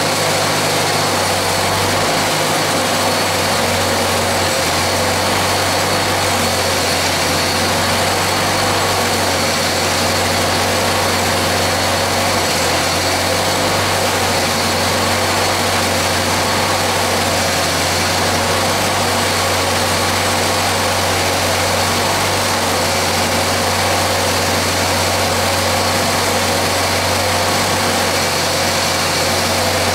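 Homemade replica bicycle engine running steadily at an unchanging speed without its cooling fan and shroud, kept going by fuel fed by hand from a bottle.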